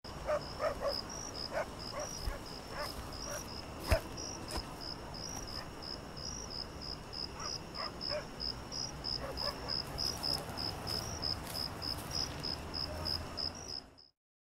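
An insect chirping steadily in a high, even rhythm of about three or four chirps a second, like a cricket at night. A few faint taps are heard early on, and one sharp click comes about four seconds in. The sound stops abruptly near the end.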